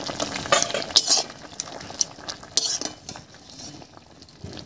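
Metal spatula clinking and scraping against a kadai, stirring and lifting cauliflower leaves in boiling water to check that they are cooked, with a faint hiss of the boil underneath. The clinks come several times in the first three seconds, the loudest about half a second and a second in.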